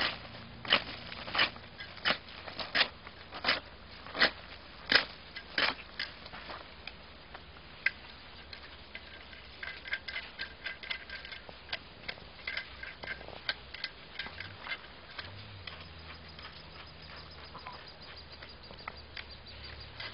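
Folding shovel blade chopping into dry, stony dirt, a sharp strike about every 0.7 s for the first six seconds. After that come lighter, irregular clicks and knocks as the shovel is handled.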